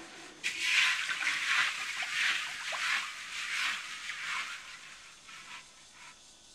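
Water swishing and splashing in a wok as it is washed by hand, in uneven strokes that fade out after about five seconds.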